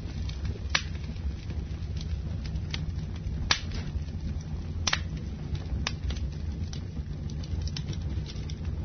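Low steady hum under a faint hiss of static, broken by sharp crackles and clicks at irregular intervals, roughly one a second.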